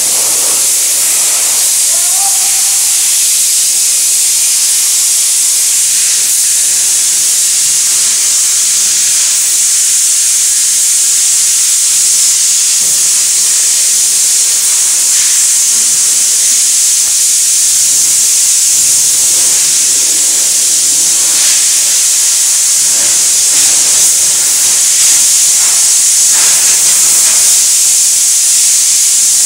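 Steady, loud, high-pitched hiss of factory machinery, with faint scattered knocks and clatter beneath it.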